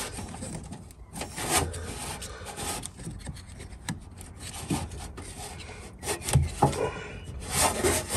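Hands working ignition coil packs loose from a car engine's cylinder head: irregular rubbing and scraping with scattered clicks and a few louder knocks.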